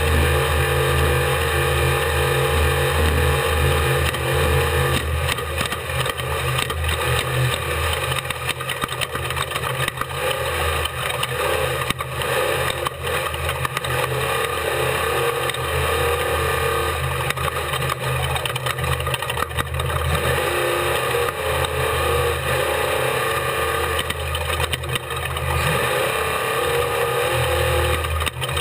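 Off-road race vehicle's engine running steadily under way, with a noisy rush over it and scattered knocks and rattles.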